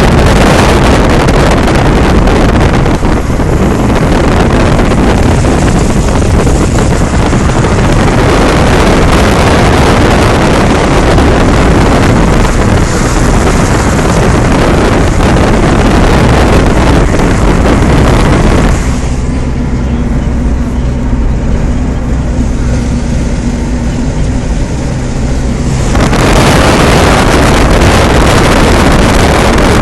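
Gale-force wind buffeting a phone's microphone: loud, rough, continuous rumble. It eases to a lower, duller rumble for several seconds past the middle, then comes back full strength.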